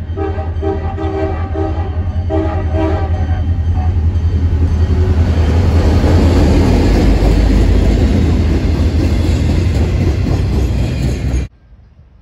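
CSX diesel freight locomotive sounding a string of about six short, multi-note horn blasts over the first three seconds. After that the engine and the rolling wheels of the train swell to their loudest as it passes close by, then cut off suddenly near the end.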